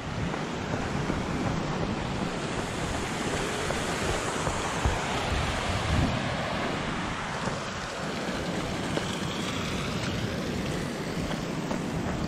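Steady rushing noise: wind buffeting the microphone, mixed with the rush of a small mountain stream cascading over rocks.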